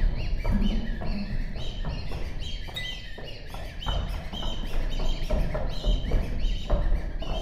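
Experimental contemporary music: a dense flurry of short, bird-like chirps and gliding squeaks, high in pitch, over a low rumble, while a performer works inside the strings of an open grand piano.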